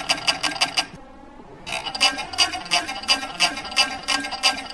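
Industrial cover stitch sewing machine running and stitching fabric, a rapid even clatter of about eight stitches a second. It stops briefly about a second in, then starts sewing again.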